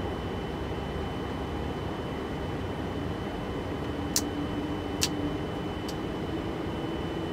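Steady cockpit noise of a Boeing 747-400 during engine start, with a faint hum that appears a few seconds in and slowly climbs in pitch as the engines spool up. Two sharp clicks about four and five seconds in, and a fainter one soon after.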